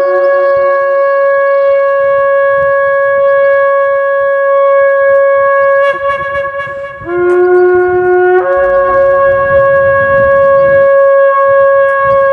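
Shofar blown in two long blasts. The first holds a steady high note and breaks off about six seconds in; after a short pause the second starts on a lower note, jumps up to the higher note and holds it to near the end.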